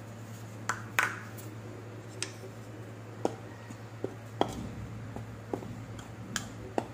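Plastic spoon stirring dry rice flour in a ceramic bowl, knocking against the bowl in a string of irregular sharp taps, over a steady low hum.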